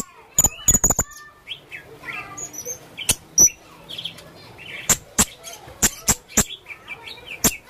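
Serindit (hanging parrot) calling: a quick run of sharp, clicking chips near the start, then single sharp chips every half second to a second, with soft high twittering in between.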